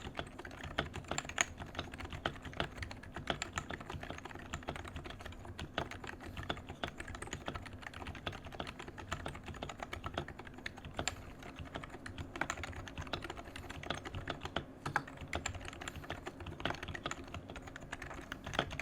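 Steady, fast typing on a Leopold FC660c Topre electro-capacitive keyboard fitted with Deskeys Tiffany 35g domes, KBDfans Silence X rings and lubed sliders, giving a dense run of soft keystrokes.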